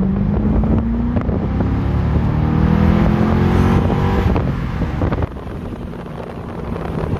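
A 2012 Corvette Grand Sport's 6.2 L LS3 V8 accelerating. The engine note climbs in pitch, drops back about a second in, then climbs again, and it is quieter from about five seconds in. It is heard from the open-top cabin with wind rushing over the microphone.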